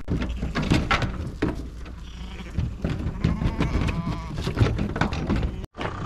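Lambs' hooves clattering and knocking on a livestock trailer's floor and ramp as they jump out, with a lamb bleating about three seconds in.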